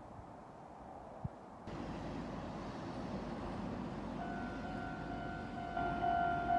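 A steady rumble sets in suddenly, then a Japanese level-crossing warning bell starts ringing a little past halfway, its electronic 'kan-kan' tone growing louder and pulsing about twice a second near the end: the crossing's alarm announcing an approaching train.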